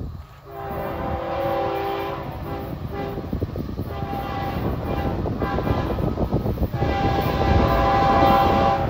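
Florida East Coast Railway freight locomotive's multi-chime air horn sounding a series of blasts for a grade crossing: a long blast, a shorter one, then a final long, loudest blast, with the low rumble of the approaching train underneath.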